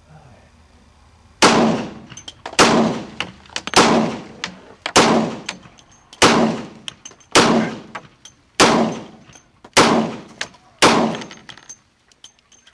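IMI Magnum Research Desert Eagle .357 Magnum semi-automatic pistol firing 180-grain hollow-point loads: nine shots in steady succession, a little over a second apart, each followed by a short echo. The string empties the magazine.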